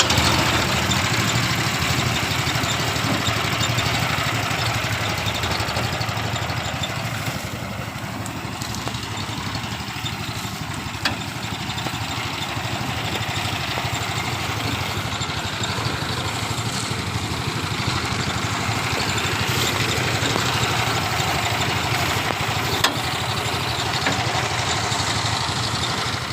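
A rice thresher's small engine running steadily, with a dense mechanical noise over its hum.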